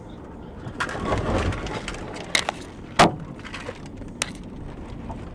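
A road collision just ahead, heard from inside a following car: a rush of noise about a second in, then a few sharp knocks and one loud bang about three seconds in, with a last knock a second later.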